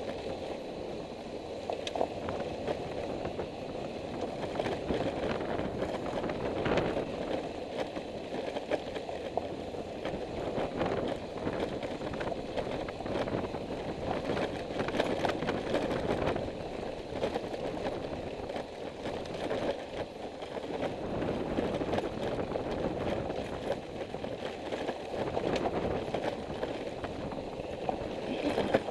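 Steady running noise of a vehicle on the road, its engine and road noise mixed, with frequent small clattering knocks throughout.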